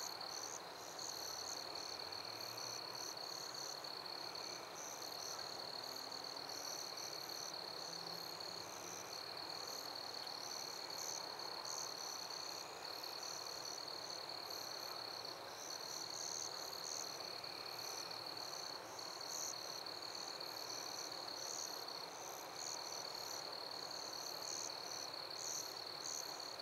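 Night insects chirping: a steady high trill with a higher, pulsing chirping above it, over a soft hiss.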